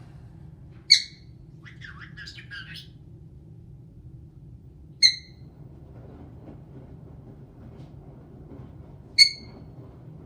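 Caique parrot giving three short, sharp, high-pitched calls about four seconds apart, with a run of soft chattering notes just after the first.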